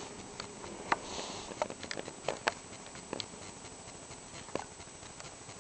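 Pomeranian dogs' paws and claws pattering and clicking on a tile floor: scattered light taps a few times a second, irregular.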